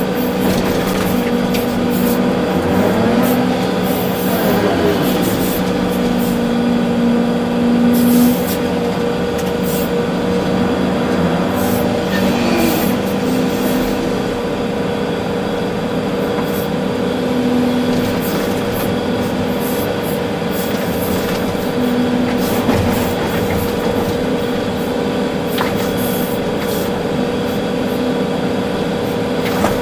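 Volvo EC380D excavator's diesel engine and hydraulics working, heard from inside the cab: a steady drone with a tone that rises and drops away every few seconds as the machine works.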